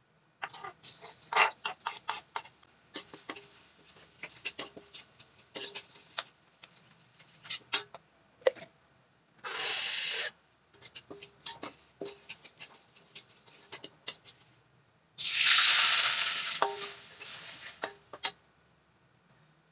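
Chopped garlic sizzling in hot oil in a metal wok, with a metal spatula scraping and clicking against the pan as it is stirred. The sizzle flares up loudly twice, briefly around the middle and longer and louder a few seconds before the end.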